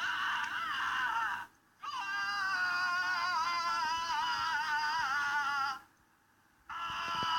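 A person screaming in long, high, wavering wails: a short one, then one of about four seconds, then another starting near the end, with brief silent breaks between.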